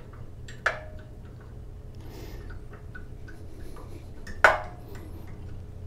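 Pliers clicking and tapping on a spring hose clamp on a rubber fuel line as it is slid down the line. There is a sharp metallic click with a brief ring under a second in, faint ticks after it, and a louder click about four and a half seconds in.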